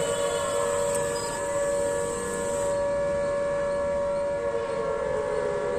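Outdoor emergency alert siren wailing on a steady high tone, with a lower tone sliding downward near the end.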